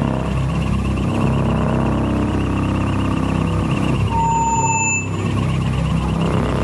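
Electronic drone soundtrack of a laser show over loudspeakers: a dense low rumble under a steady pulsing high tone, with a short, slightly falling beep about four seconds in.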